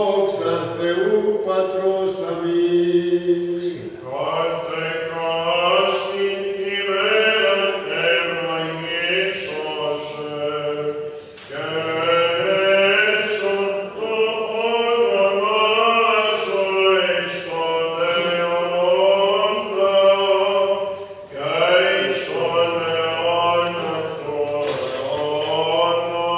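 Greek Orthodox Byzantine chant: a slow, ornamented sung melody over a steady held drone beneath it, in long phrases that break briefly about 4, 11 and 21 seconds in.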